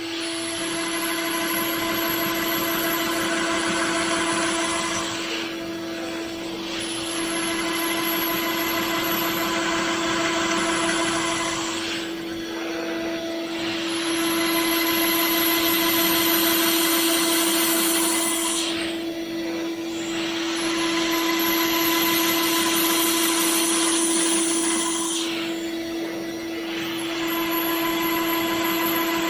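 Tomahawk Pro CNC machine milling a plate: the spindle runs with a steady whine while the cutter's noise swells and eases in repeated passes, dipping briefly about every six to seven seconds as the tool changes direction or lifts between passes.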